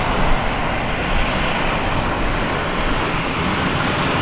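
Airliner engines running, heard as a steady, even rush of noise with no change in loudness.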